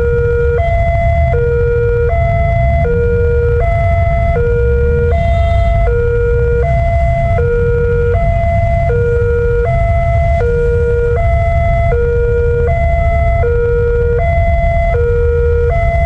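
Railway level-crossing warning alarm sounding: an electronic two-tone signal that switches between a lower and a higher tone about every three-quarters of a second, over a steady low rumble. It is the crossing's warning that a train is approaching, with the barriers down.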